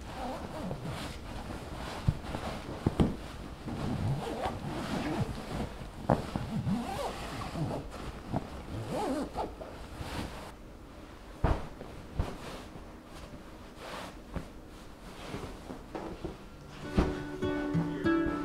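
Fabric rustling and brushing as upholstery covers are pulled over and smoothed onto large sofa cushions, with a few sharp knocks. Acoustic guitar music comes in near the end.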